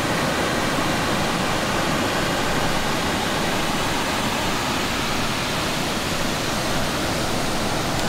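Small waterfall and stream: water rushing in a steady, even roar.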